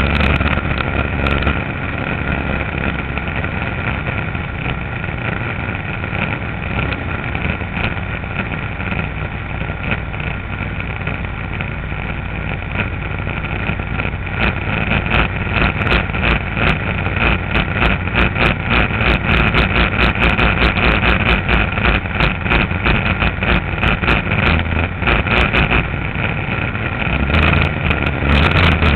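Race boat's Chevrolet engine running hard at speed, with water and wind rushing past. About halfway in it grows louder and choppier, with rapid buffeting.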